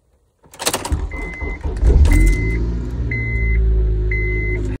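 A car engine being started: a brief clatter of cranking, then the engine catches about two seconds in and settles into a steady idle. A dashboard warning chime beeps four times over it, about once a second.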